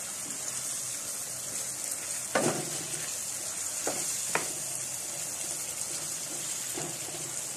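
Chicken pieces in spice paste and yogurt sizzling in a frying pan as a wooden spatula stirs them: a steady high hiss, with three sharp knocks of the spatula against the pan in the middle.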